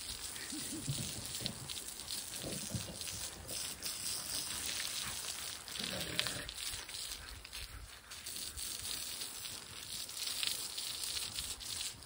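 Garden hose spraying water onto a horse's wet coat and the dirt ground: a steady hiss and patter of water.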